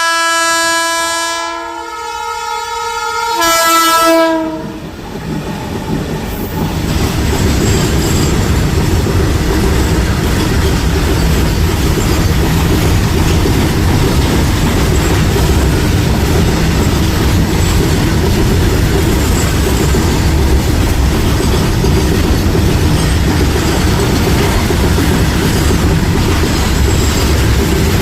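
WAG-12B electric freight locomotive sounding its horn in two blasts, the first ending about two seconds in and the second about four seconds in. Then the loaded BOXN freight wagons roll past steadily, their wheels rumbling and clacking over the rails.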